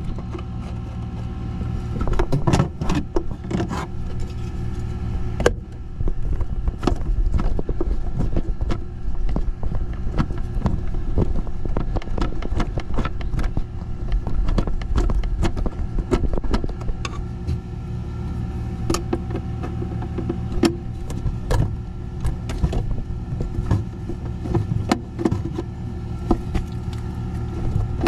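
Steady hum of a running Carrier heat pump unit, with frequent clicks and knocks of hands working wires on its defrost control board.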